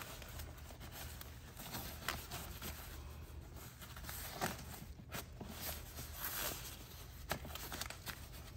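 Faint rustling of a stroller wagon's nylon fabric being handled, with a few soft clicks, as the plastic snack-tray anchor points are worked through the fabric side wall.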